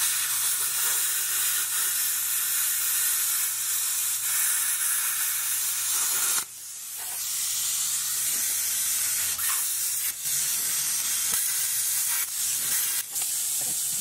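Plasma cutter cutting steel, a steady hiss of the air-and-arc jet as it slices the ears off a rotted catalytic converter exhaust flange. The cut stops briefly about six and a half seconds in, then starts again, with a few short breaks near the end.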